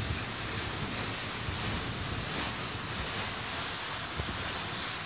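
Steady rush of water and wind around a sailing boat under way, heard from inside its cabin, with a few soft low knocks.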